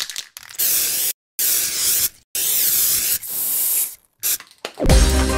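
Aerosol spray-paint can spraying in four hissing bursts, with a few short clicks between them. Electronic music with a heavy bass comes in shortly before the end.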